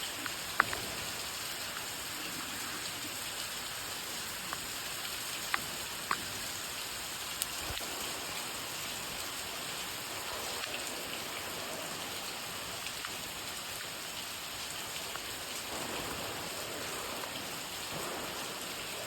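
Steady rain falling, an even hiss with a few sharp, louder drop clicks scattered through it.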